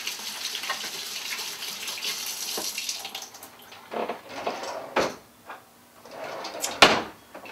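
Kitchen sink tap running as hands are washed under it for about three and a half seconds, then it stops. A few sharp knocks and clatters follow, the loudest near the end.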